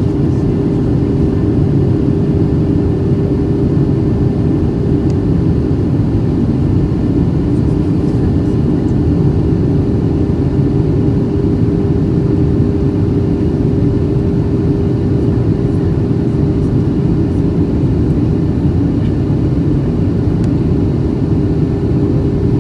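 Steady drone of a Boeing 737-700's CFM56-7 turbofan engines and rushing air heard from inside the cabin, a low roar with a constant hum tone running through it.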